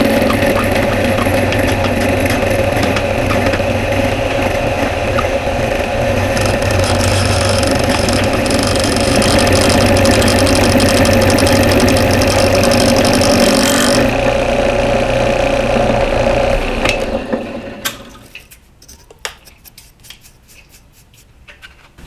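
Drill press running as a milling machine, its half-inch square high-speed end mill cutting across a pine board: a steady motor hum with chip-cutting hiss on top. The higher cutting hiss drops out about 14 seconds in, and the machine sound dies away around 17 seconds, leaving a few light clicks.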